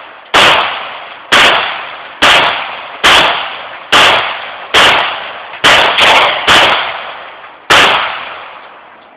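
Ten shots from a .40-caliber Glock pistol, fired about one a second with two in quick succession a little past the middle. Each shot is very loud and rings out for most of a second before the next.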